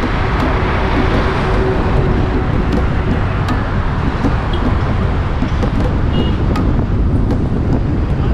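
Steady road noise from a car driving along a city street: a continuous low rumble of engine and tyres with surrounding traffic.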